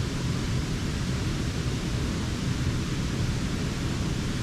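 Steady rushing of flowing creek water, an even hiss with a low rumble underneath.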